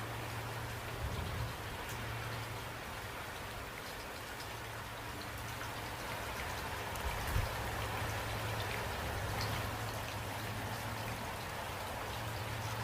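Steady rain falling, with a low steady hum underneath and a brief soft thump about seven seconds in.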